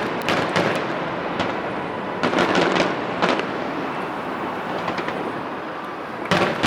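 Fireworks going off in a series of sharp bangs and crackles over a steady rumbling haze, with a loud cluster of bangs near the end.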